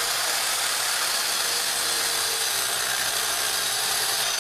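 Rotorazer Saw Platinum compact circular saw running steadily as it cuts through a wooden board.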